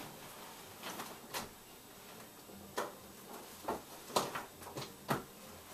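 A few scattered light clicks and knocks, about seven in all, as a power cord and its plug are handled and plugged in.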